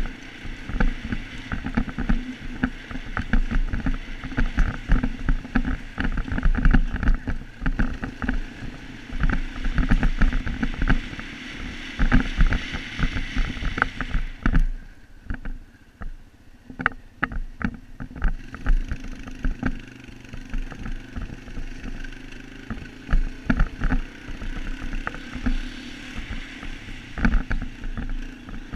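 Small off-road vehicle engine running under throttle, heard from a helmet-mounted camera over wind, with frequent knocks and rattles from the rough, rocky ground. The engine noise drops off for about two seconds around halfway through, then picks up again.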